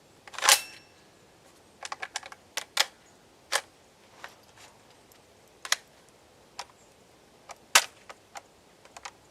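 Metallic clicks and clacks of a Centurion BP12 shotgun being handled, about a dozen irregular sharp knocks with the loudest about half a second in and near the end, as the magazine is worked in and out; the owner suspects the magazine is not locking in.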